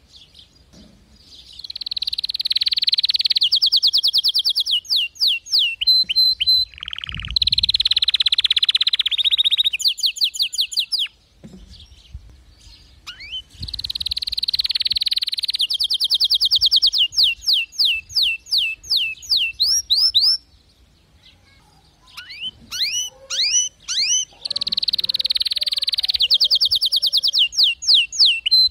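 White domestic canary singing: long song phrases of fast rolling trills and rising whistled notes, in three runs with short pauses about a third and two-thirds of the way through.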